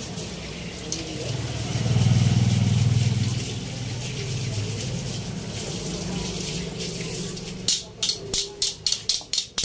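Cooking oil heating in a steel wok, a small piece of food in it sizzling with a steady hiss. A low rumble swells for about two seconds near the start, and near the end comes a quick run of sharp pops or clicks, about three a second.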